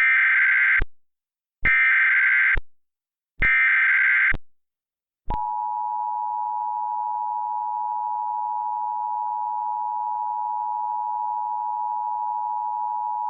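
Emergency Alert System signal: three short buzzy bursts of SAME header data, about a second each with brief gaps between them. About five seconds in, the steady two-tone EAS attention signal (853 and 960 Hz) begins and holds unbroken.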